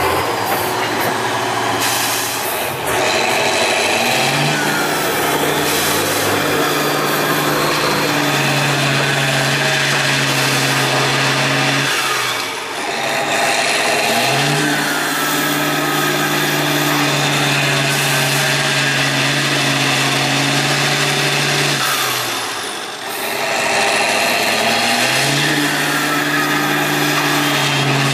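Tatra 8x8 trial truck's diesel engine revving hard under load as it crawls through rough ground. It pulls up and holds for several seconds three times, with brief drops in revs in between.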